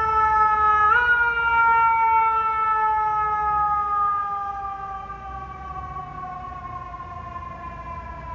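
Fire engine's mechanical siren, a Federal Q2B: one wailing tone that gets a quick push up in pitch about a second in, then winds down slowly and steadily, falling in pitch and fading through the second half.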